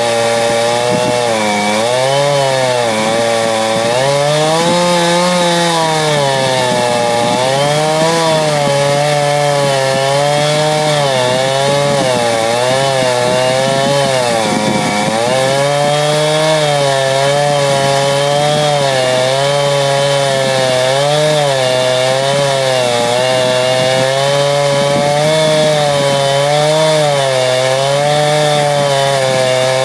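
Two-stroke chainsaw at full throttle ripping lengthwise through a log. Its pitch sags and recovers every second or two as the chain bites into the wood, with one deeper drop about halfway through.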